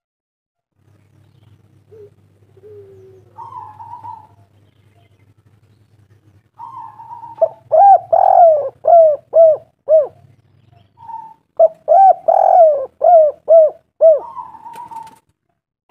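Spotted dove cooing. A few soft calls come first, then two loud runs of rapid, repeated coo notes, one about halfway through and one near the end.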